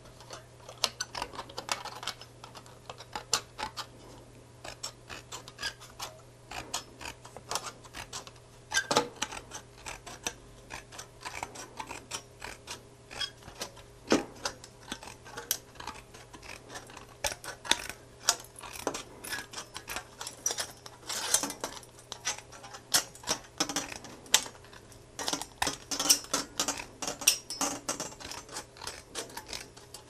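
Tin snips cutting a 0.3 mm stainless steel sheet into a strip: a long run of short, irregular metallic snips and clicks.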